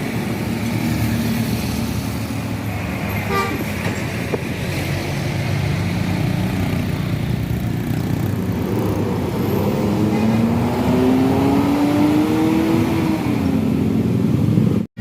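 Tour bus engine running with road noise. In the second half the engine note climbs steadily for several seconds as the bus accelerates, then the sound cuts off suddenly just before the end.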